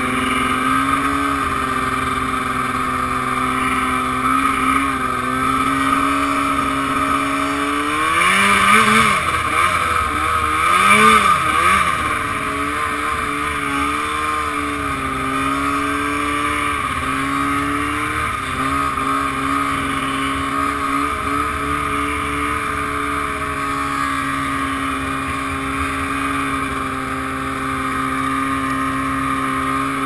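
2007 Arctic Cat Firecat F6 snowmobile's 600cc two-stroke twin running at a steady throttle while ploughing through deep powder. About eight to twelve seconds in it revs up and back down twice.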